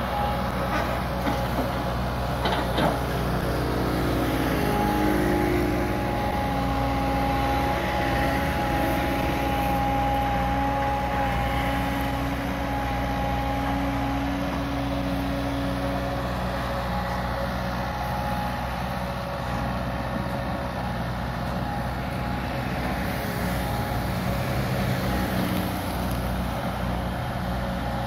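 Hitachi EX120 long-arm excavator running steadily as it works, its engine hum joined by a whine that shifts in pitch over the first few seconds and fades about halfway through. A couple of knocks come near the start.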